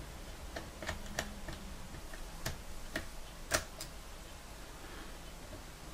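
Homemade lock pick working the pins of an ISEO 5-pin euro cylinder lock: scattered light clicks at irregular intervals, the loudest about three and a half seconds in.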